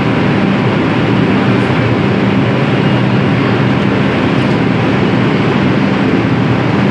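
R142 subway car standing in the station, its rooftop air-conditioning and equipment running with a steady, loud hum.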